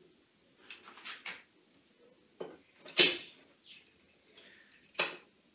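Steel bar clamps being set across glued-up wooden boards: a series of sharp metallic clanks and knocks, the loudest about three seconds in.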